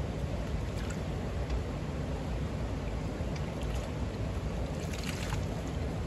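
Small mountain stream running over rocks, with light splashes of water scooped by hand and splashed onto a face about five seconds in.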